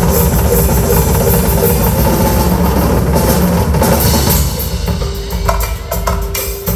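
Live Latin band music in an instrumental passage, led by a drum kit with bass drum and snare. After about four seconds the drumming gives way to lighter, clicky percussion over a held note.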